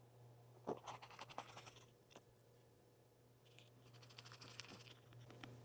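Faint scratching and a few light clicks of a small T3 Torx screwdriver working the tiny screws of a camera's front housing, in short spells about a second in and again around four to five seconds in.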